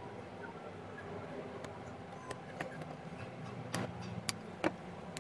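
Side cutters snipping through the plastic and pins of a hard drive's SATA connector: a handful of sharp, irregular clicks, the loudest three coming close together in the second half, over a low steady hum.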